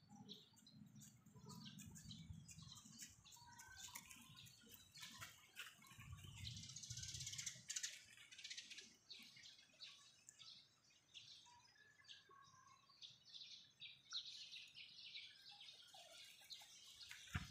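Faint, rapid chirping of small birds, with a low rumble twice underneath.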